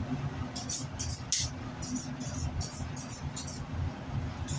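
A butcher's knife being honed: a run of quick, high scraping strokes, about three a second, that stops shortly before the end and starts again right at the end, over a steady low hum.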